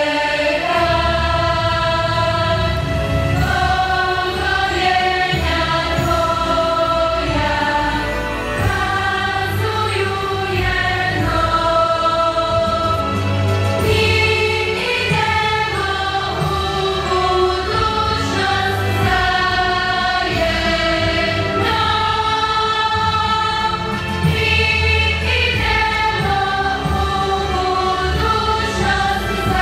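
School children's choir singing a slow song in long held notes.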